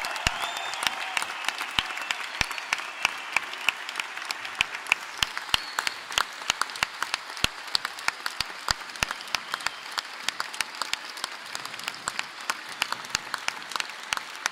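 Large theatre audience applauding, an even wash of many hands clapping, with one person's claps close by standing out at about three a second.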